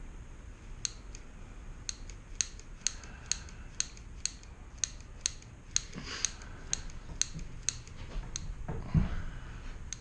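Mini grease gun being pumped by hand, a fast, even run of sharp clicks, about three or four a second; it is still pushing trapped air out, before any grease comes through. The clicking stops a little past eight seconds, and there is a low thump about a second later.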